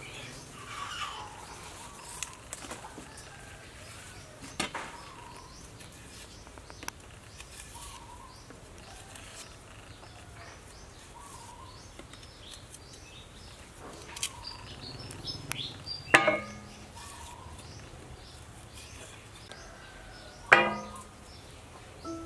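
Birds chirping now and then over faint handling of leafy stems. Two loud, sudden, short sounds stand out, one about two-thirds of the way in and one near the end.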